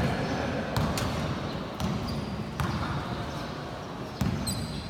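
A basketball bouncing on a court floor, four thuds at uneven intervals, with a short high squeak near the end.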